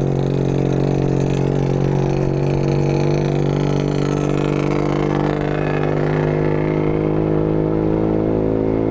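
Motorcycle engine with a loud aftermarket exhaust, running at steady revs while riding, heard from the rider's own seat.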